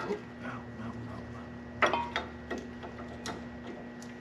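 A few sharp clicks and light knocks, irregularly spaced, from hand work fitting rear brake pads into a Jeep Wrangler's brake caliper. The loudest comes about two seconds in.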